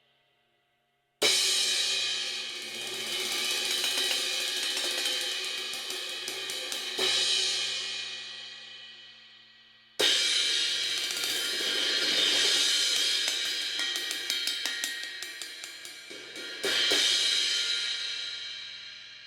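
Istanbul Mehmet Samatya crash cymbal played with sticks: a crash about a second in, then many quick strokes on it with another accent and a long ringing decay. The same pattern repeats from the middle: a second crash, quick strokes, an accent, and a fading wash near the end.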